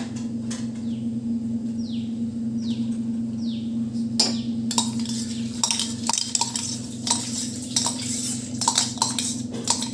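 A spoon clinking and knocking against a pan in quick, irregular strikes, stirring honey into the remedy mixture, starting about four seconds in. A steady low hum runs underneath.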